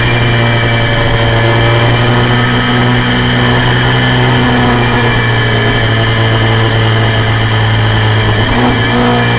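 Honda VFR400's 400 cc V4 engine running hard at steady high revs, about 8,000 rpm, heard from onboard the race bike. The note wavers briefly about eight and a half seconds in.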